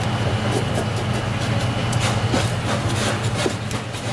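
Kitchen knife scraping the scales off a red grouper on a cutting board in quick, repeated strokes, over a steady low hum.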